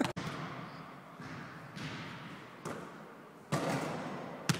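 A basketball thumping several times, about a second apart, in a large hardwood-floored gym, over a steady hiss; the two loudest hits come near the end.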